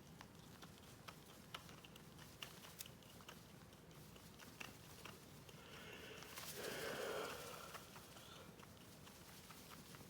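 Blue-and-gold macaw giving a single fake cough: one rasping burst about a second long, a little past the middle. Faint scattered clicks and taps come and go around it.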